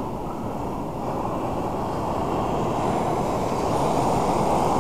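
Steady rush of breaking surf and wind on the beach, a deep, even noise with no distinct events.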